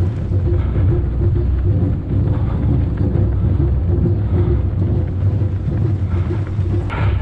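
Wind buffeting the microphone of a runner's camera: a loud, steady low rumble, with a short sharp click near the end.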